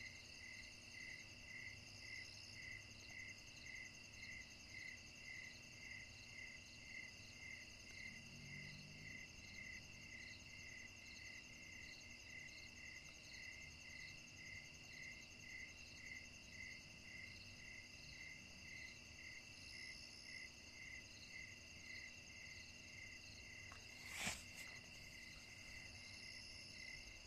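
Faint chorus of crickets: steady high trills over a regular chirp about one and a half times a second. A single sharp click or knock sounds near the end.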